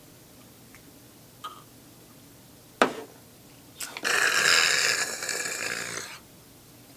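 A shot of goryangju knocked back: a short sharp knock about three seconds in, as of a shot glass set down on the table, then a long harsh hiss of breath through clenched teeth lasting about two seconds, the reaction to the burn of the strong liquor.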